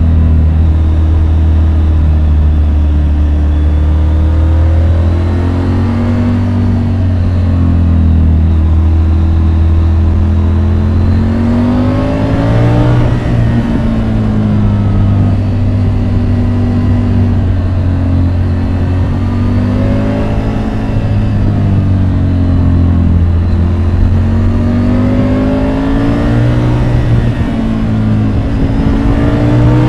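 Triumph Tiger 850 Sport's inline three-cylinder engine under hard riding, its pitch rising repeatedly as it accelerates and dropping back on each gear change or throttle-off, about four or five times.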